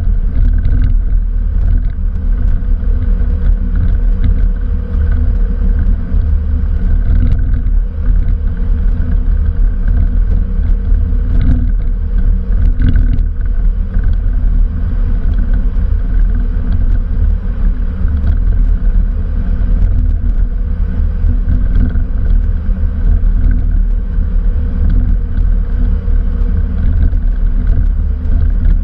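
In-flight cockpit noise of a Cessna Citation CJ4 business jet: a loud, steady low rumble of airflow and engines, with a faint even hum over it.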